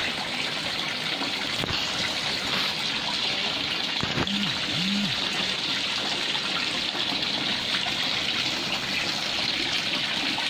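Garden fish-pond fountain: water pouring from a spout into the pond, a steady splashing trickle. Two short low sounds come about four seconds in.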